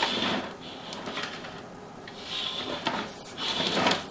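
Sewer inspection camera's push cable being fed down the line, with uneven bursts of rattling and scraping about a second apart and a quieter lull in the middle.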